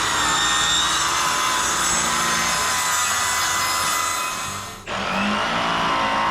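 Power saw cutting through a wooden board, a steady whine that drops out briefly about five seconds in and then picks up again.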